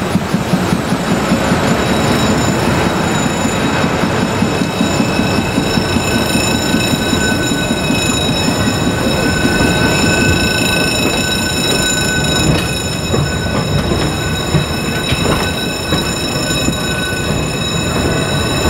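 Tourist train passing at walking pace: the diesel locomotive goes by, then wooden passenger coaches roll past with a steady rumble of wheels on rail. Steady high-pitched tones run over the rumble, most prominent from about six seconds in.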